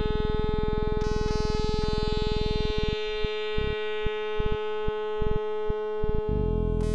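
Sequential Circuits Pro-One analog synthesizer music: a steady held high note over a fast buzzing low pulse. About three seconds in the low pulse drops out, leaving the held note with a few short clicks, and near the end a denser low layer comes back in.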